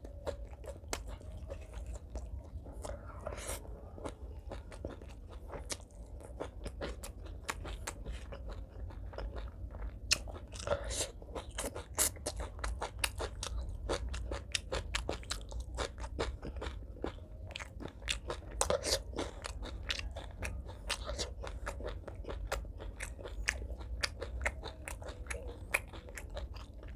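Close-miked chewing and crunching of food, a dense run of irregular crunches and clicks. The food is fried fish, rice and green vegetables eaten by hand. A steady low hum sits underneath.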